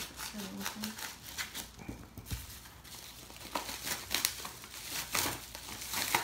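Scissors snipping into a padded paper mailer, then the mailer crinkling and tearing as it is pulled open by hand: an irregular string of crackles and snaps.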